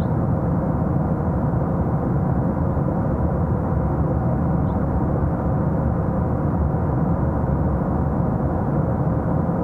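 SpaceX Raptor rocket engine firing on a vertical test stand: a steady, unbroken rumble with a faint hum running through it. This is the engine's second burn, relit a few seconds after a shutdown in a rapid-relight test.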